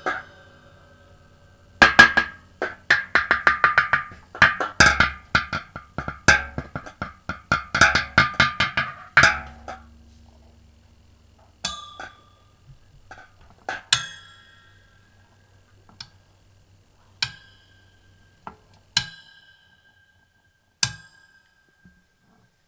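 Household objects struck to make raw sound effects: sharp knocks and taps with a short ringing tone. They come fast in irregular runs for the first several seconds, then as single strikes every second or two, the last ones ringing on briefly.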